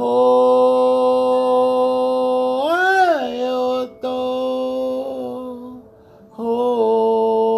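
A chant sung by a single voice in long held notes. About three seconds in, the pitch swoops up and back down. Near six seconds there is a short break for breath, then another held note begins.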